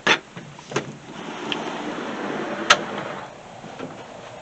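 Door being opened and gone through: latch clicks and knocks, a rushing noise that swells for about two seconds, and a sharp click about two and a half seconds in.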